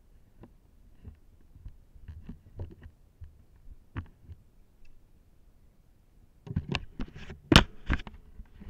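Downhill mountain bike rolling over a rough concrete surface: scattered light clicks and knocks of the bike rattling, then near the end a burst of louder clattering knocks with one sharp bang.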